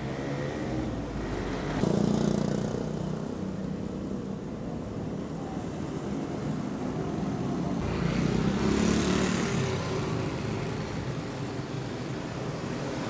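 Road traffic: cars and other vehicles passing along a street, with a steady rumble that swells with a louder pass about two seconds in and another around eight to ten seconds in.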